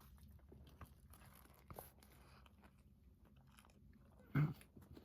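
A person chewing a bite of a ham sub sandwich, faint, with a few small mouth clicks and a brief louder mouth sound near the end.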